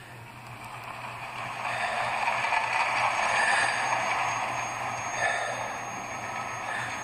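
Slow-motion race-car crash soundtrack played from a TV speaker and picked up by a phone: a rushing noise that swells up about a second in and stays loud, over a steady low hum.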